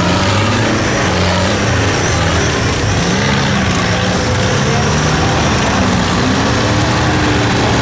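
Engines of off-road 4x4 trucks revving under load as they churn through deep mud, the pitch repeatedly rising and falling.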